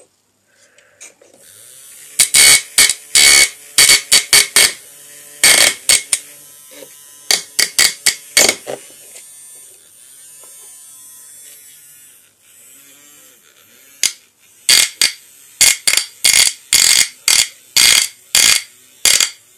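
Small electric motor of a homemade micro saw, built from a toy jigsaw, switched on in short spurts: a dozen or more brief buzzes, irregular at first and then about two a second near the end, with a pause of a few seconds in the middle.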